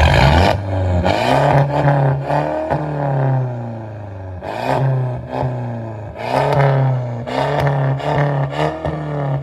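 Infiniti V6 engine revved in a quick series of throttle blips, its pitch rising and falling with each blip; loud as hell.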